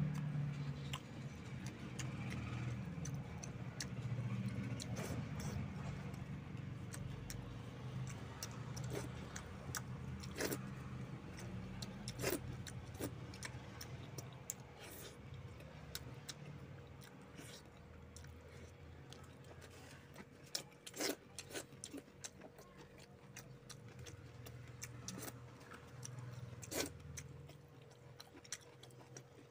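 A person eating by hand: soft chewing with irregular sharp clicks and lip smacks, and a low murmur that fades through the first half.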